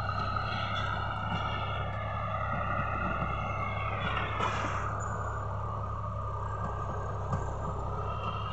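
Diesel tractor engine running steadily under load while ploughing. Above its low drone is a higher whine that wavers and dips briefly about four seconds in.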